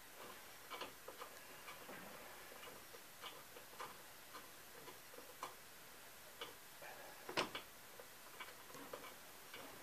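Quiet, irregular light clicks and ticks from a hand wrench working the nuts that hold a MerCruiser Bravo One sterndrive's bell housing, with one sharper click about seven seconds in.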